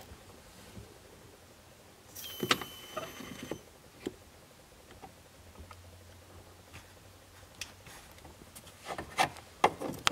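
The failing HVAC panel door of a Crown Victoria moving inside its opened heater box. A squeaky rub lasts about a second and a half, starting two seconds in. A single click follows, then a quick run of sharp clicks and knocks near the end.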